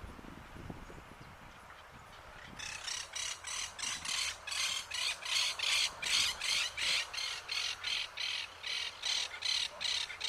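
Southern crested caracara calling: a long run of short harsh notes, about two to three a second. The run starts about two and a half seconds in and stops abruptly near the end.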